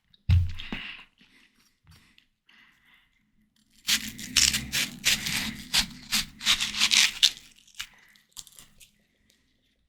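Biting into and chewing ripe, juicy watermelon: a short crunchy bite near the start, a pause, then about three seconds of wet crunching and chewing from about four seconds in, followed by a few small mouth clicks.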